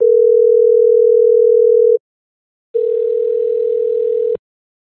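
Telephone ringback tone from an outgoing call on a web phone dialer: one steady two-second ring, a short pause, then a second, rougher ring of about a second and a half that cuts off suddenly. The tone means the called line is ringing.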